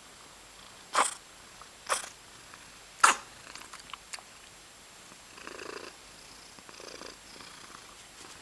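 Domestic cat sneezing three times in quick succession, about a second apart, each a short sharp burst, over soft purring.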